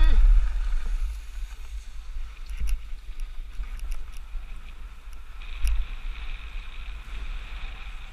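Wind buffeting the microphone of a camera carried by a skier moving downhill, a steady low rumble, with skis hissing over groomed snow, louder from about halfway through, and a few light clicks.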